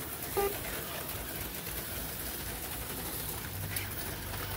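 HO-scale slot cars running laps on a plastic track: a steady whir of small motors and wheels. A short low hooting tone sounds about half a second in.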